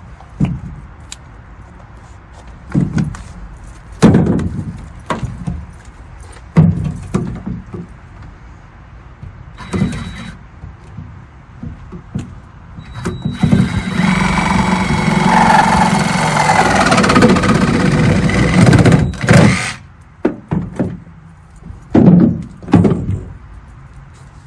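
Irregular hollow knocks and clunks of 2-inch PVC pipe and fittings being handled and pushed together during a dry fit, about a dozen in all. A steadier noisy stretch lasts about five seconds in the middle.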